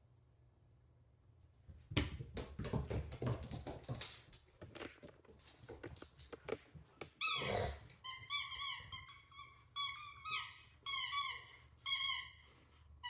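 Puppy at play with a ball: a flurry of knocks and scrabbling, then a run of short, high squeaks that starts about eight seconds in.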